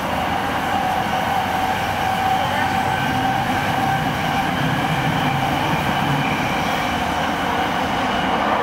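Running noise inside a JR East E217 series electric motor car travelling at speed: wheels rolling on the rails with a steady hum from the traction motors.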